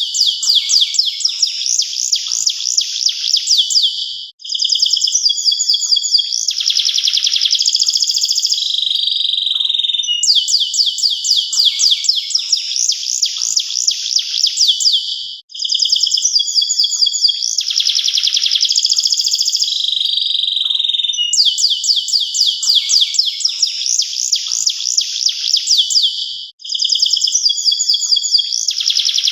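Domestic canary singing a long, continuous song of fast, high trills and rolls, broken only by three short pauses.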